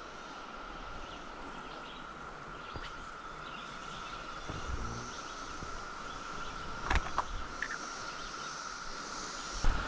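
Periodical cicada chorus droning steadily at one pitch, over a faint hiss, with a sharp knock about seven seconds in and another near the end.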